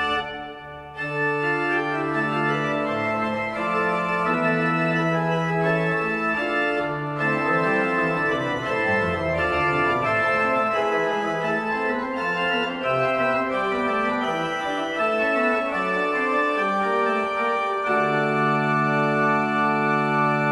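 Pipe organ playing a Baroque piece with sustained pedal and manual notes, after a short break about a second in. It closes on a long held full chord near the end.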